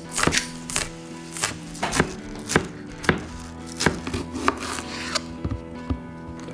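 Chef's knife chopping green onions and a jalapeño on a cutting board: sharp knocks of the blade on the board, about two a second, over background music.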